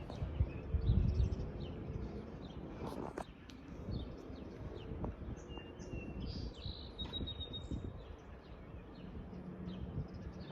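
Outdoor ambience: birds chirping a few times, mostly around the middle, over a low steady rumble.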